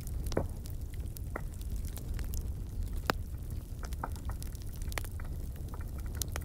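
Brush bonfire of dry branches crackling, with irregular sharp pops over a steady low rumble; one pop stands out about three seconds in.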